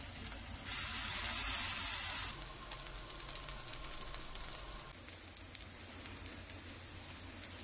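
Lotus-root fritter batter frying in oil in a nonstick pan: a steady sizzle with small pops. It is much louder and hissier for a second or so starting about a second in, just after a spoonful of batter goes into the hot oil.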